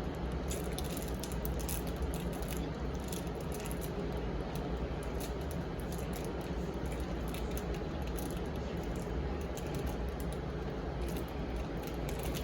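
Plastic packaging rustling and crinkling in irregular small clicks as a toy's surprise pouch is opened and handled, over a steady low hum.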